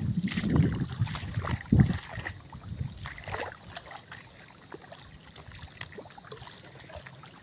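Footsteps sloshing through shallow water and mud for about the first two seconds. It then turns quieter, with many small scattered clicks and pops.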